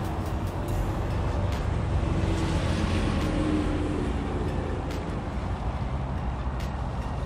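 Steady low rumble of passing road traffic, with one vehicle's engine note coming through about two to three seconds in and a few faint clicks.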